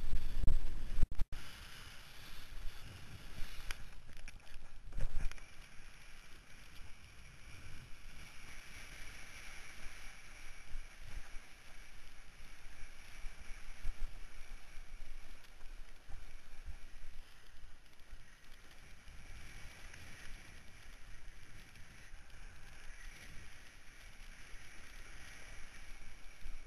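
Kiteboard riding across choppy water: a steady rush of wind and water on the rider's body-mounted camera microphone, with heavy low wind buffeting in the first second or so.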